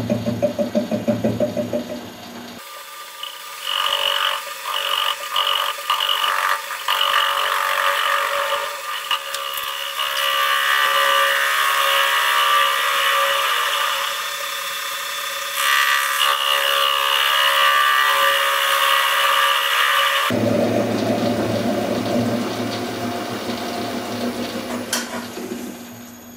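Metal lathe turning an aluminium casting on a faceplate, with the tool taking a facing cut across its end. A rhythmic pulsing from the spinning work gives way after a couple of seconds to a high, ringing cutting noise that starts and stops at first and then runs on. The pulsing returns near the end, when the cut stops.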